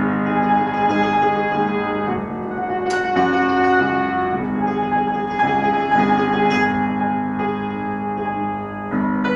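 Upright piano played solo, held chords that change every second or two.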